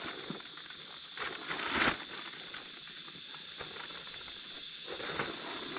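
A steady, high-pitched chorus of insects, with a few brief rustles of a tarp being handled, the loudest just under two seconds in.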